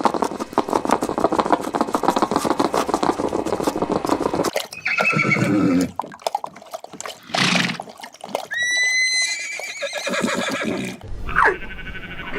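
Horse hooves beating in a rapid run for the first four seconds or so. Then a horse gives several separate whinnies and snorts, one of them a thin, high rising call.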